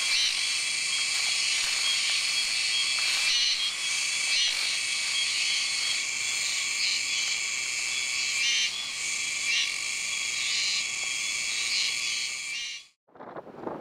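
Loud, steady chorus of cicadas, high-pitched and unbroken. It cuts off suddenly near the end and gives way to wind on the microphone.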